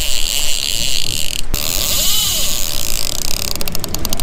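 Fishing reel drag buzzing as a hooked fish runs and pulls line off the reel, with a short break about a second and a half in; near the end the buzz slows into a quick row of separate clicks.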